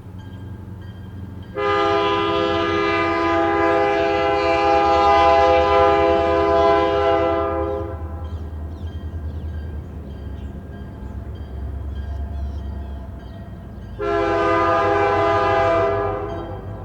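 Nathan Airchime K3L three-chime locomotive air horn sounding a long blast of about six seconds, then a short blast of about two seconds near the end. The diesel locomotive's engine rumbles underneath throughout.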